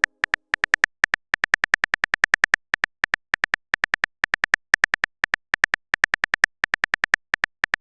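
Phone-keyboard typing sound effect of a texting-story app: a fast, uneven run of short, identical clicks, several a second.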